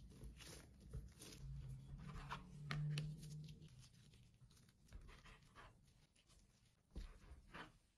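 Faint rustling and soft squishing of gloved hands pressing the gas out of proofed bread dough, then tearing off pieces of it on a plastic board. A low hum swells briefly about two to three seconds in.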